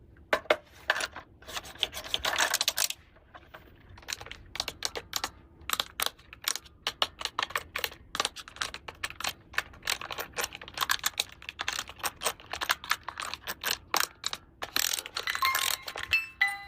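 Small plastic toy pieces being handled and snapped together: a quick, uneven run of light clicks and taps, with plastic packaging rustling near the start and again near the end.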